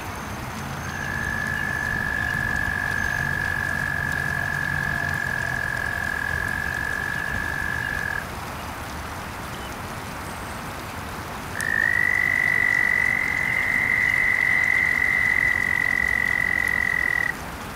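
Two long, steady toad trills one after the other. The first lasts about seven seconds. After a short gap a second trill, higher and louder, runs about six seconds. Light rain patters on the pond beneath them.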